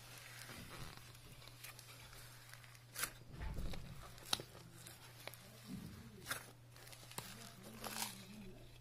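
Hands kneading slime through a pile of loose foam microbeads: crackling and rustling beads with scattered sharper crunches and sticky pops, over a low steady hum.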